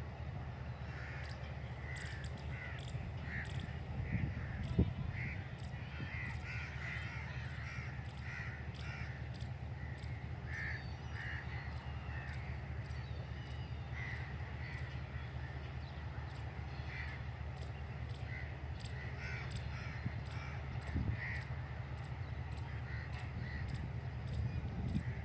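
Crows cawing repeatedly over a steady low rumble, with a few brief low thumps, about five seconds in and again near the end.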